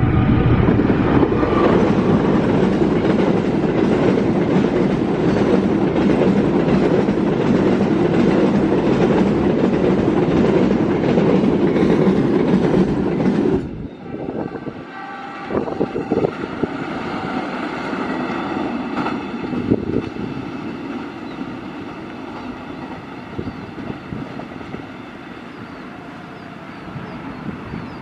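A freight train hauled by a diesel locomotive passes close by: a loud rumble of engine and wagons on the rails. About halfway through it drops suddenly to a quieter rumble and clatter of the wagons running away.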